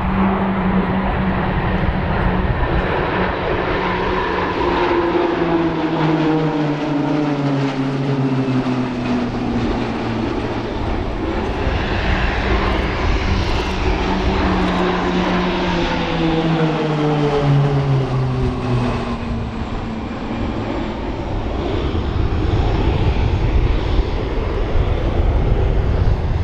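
Propeller aircraft flying past twice: its droning engine and propeller tone drops in pitch as each pass goes by.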